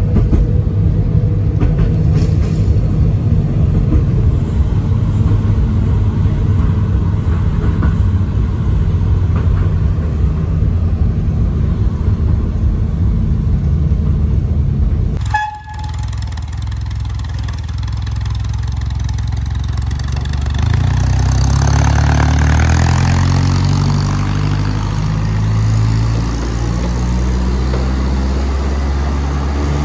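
Small diesel locomotive's engine running close by, a steady low drone. A short toot about halfway through, then the engine note rises and falls as it revs, with a rushing hiss over it for a few seconds.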